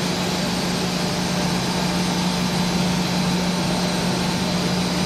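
Plastic hollow corrugated sheet extrusion line running: steady machine noise with a constant low hum and an even hiss over it.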